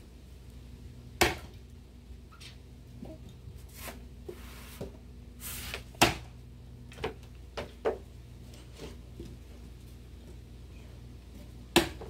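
An axe chopping into a log: three sharp blows, about a second in, halfway through and just before the end, with several lighter knocks between.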